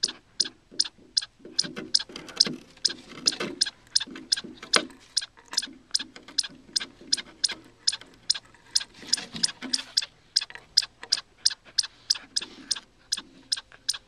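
Dog gnawing at the edge of a wooden deck board, its teeth clicking sharply and evenly about three times a second.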